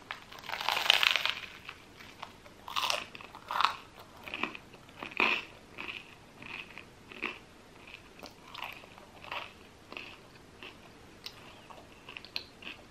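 A bite into crusty baguette with a loud crunch about half a second in, then close-up chewing of the crust with irregular crackling crunches.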